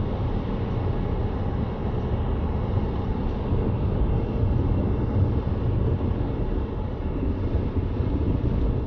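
Steady low rumble of a car driving at highway speed, tyre and engine noise heard from inside the cabin by a dashcam microphone.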